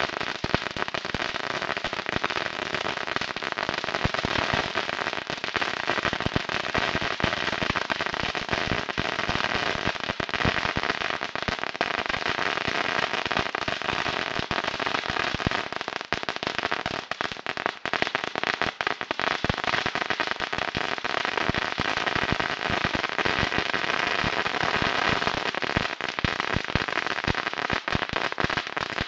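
A long string of firecrackers going off, the bangs packed so close together that they form one continuous rapid crackle with no let-up.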